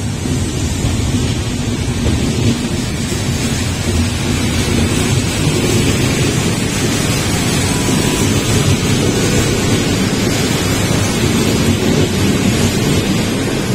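Passenger coaches of an intercity train rolling past along a platform: a steady rumble of wheels on the rails.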